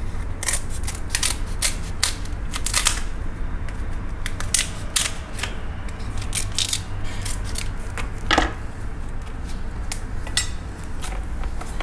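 Kitchen scissors snipping through the shells of Alaskan king crab legs: a quick series of sharp snips at uneven intervals, with one louder cut about eight seconds in.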